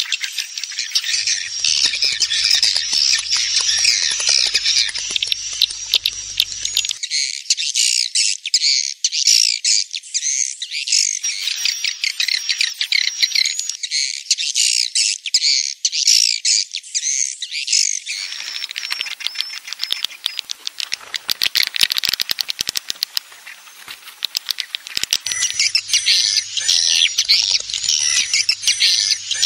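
Swiftlet lure call: a dense, continuous chatter of many swiftlets chirping, mixed with wing flapping, blended from recordings of swiftlets at their roost. It thins out briefly about three-quarters of the way through, then returns at full density.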